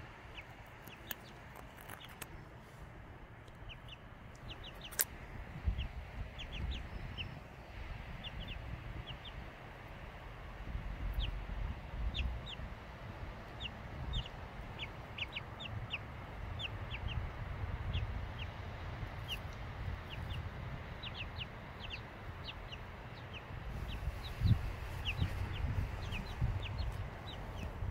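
A group of young chickens peeping as they forage: short, high, down-sliding chirps, several a second, with a low rumble underneath.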